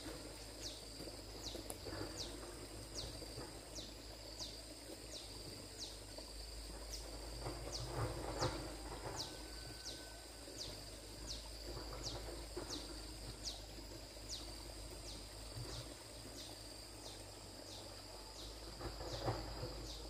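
Insects calling, a steady high, thin trill with a short chirp repeated about every two-thirds of a second, and a few faint knocks about eight seconds in.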